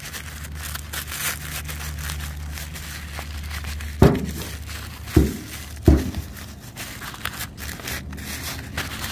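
Packaging crinkling and tearing as small car parts (vent grilles) are unwrapped by hand, with three dull thumps between about four and six seconds in. A steady low hum underlies the first four seconds.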